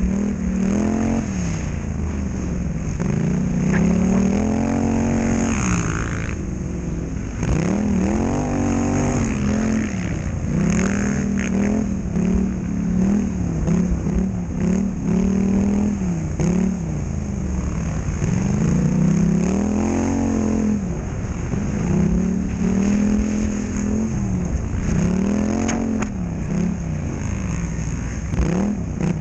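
Polaris Scrambler XP1000 quad's parallel-twin engine revving up and down over and over as it is ridden, the throttle opened and shut so the pitch rises and falls every two to three seconds.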